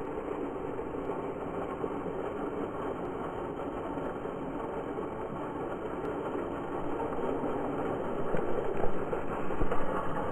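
Churning pool water rushing steadily, getting louder and more uneven in the last few seconds.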